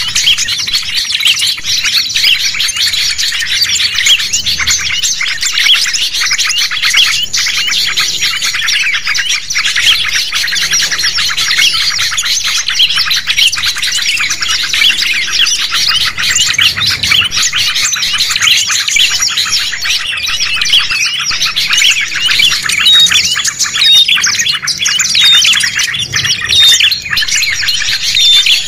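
A bird-lure recording of many small songbirds chirping and twittering at once in a dense, unbroken chorus. Near the end a run of short repeated notes stands out above the mass.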